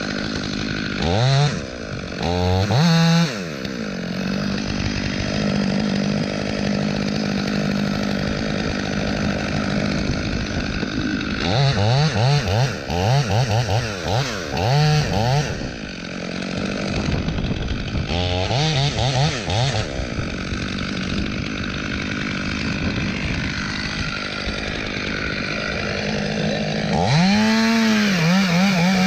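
Two-stroke chainsaw running at idle and revved up and down in bursts: twice near the start, a quick series about twelve seconds in, again around eighteen seconds, and once more near the end.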